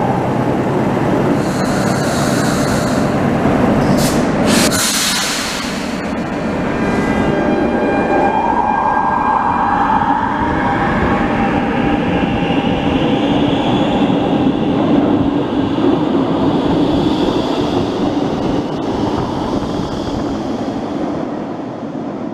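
Barcelona Metro train pulling out of an underground station: a short loud hiss about four seconds in, then the motors' whine rising steadily in pitch as the train gathers speed past the platform. It fades off near the end as the train goes into the tunnel.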